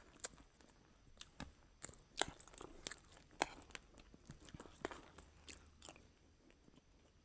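Crunching and chewing of chatpat, a spicy puffed-rice snack: irregular crisp crunches that thin out near the end.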